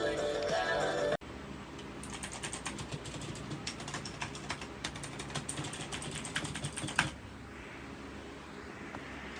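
Typing on a mechanical keyboard: rapid, irregular key clicks for about five seconds, ending with one louder click. Before that, music cuts off abruptly about a second in.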